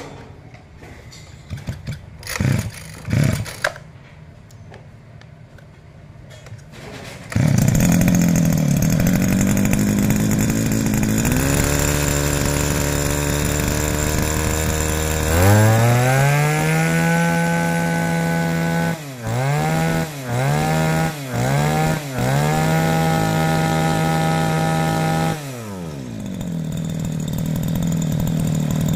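Maruyama 32cc two-stroke brush-cutter engine starting after a few short knocks about seven seconds in, then idling. It is throttled up to a high steady speed, blipped down and back up four times, held high, and let drop back to idle near the end.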